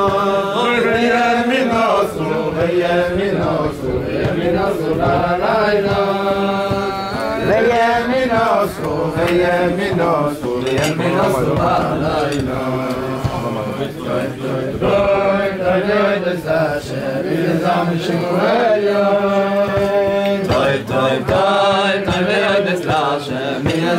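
Men's voices singing a slow Hasidic niggun together, in long drawn-out phrases that rise and fall.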